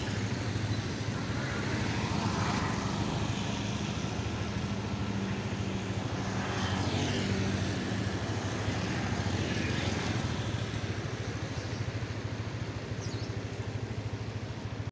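Street traffic: a steady low engine hum with a few vehicles swishing past on the wet road every few seconds.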